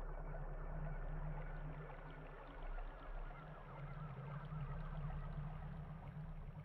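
Soft water sounds from a sit-on-top kayak being paddled along, with many small bird chirps in the background.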